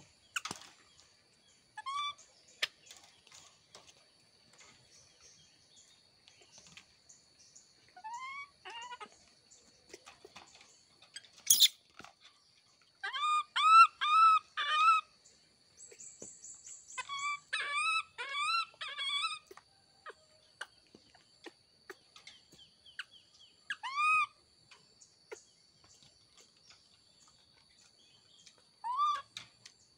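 Baby monkeys giving short, high squeaky calls that rise and fall in pitch, in quick runs of three to six and singly in between. There is a sharp click about twelve seconds in.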